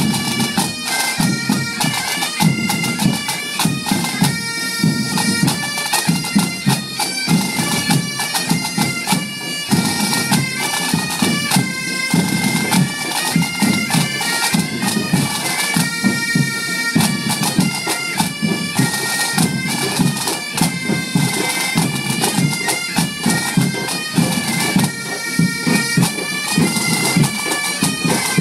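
Breton bagad pipe band playing: bagpipes carry a stepping melody over dense, rapid drumming.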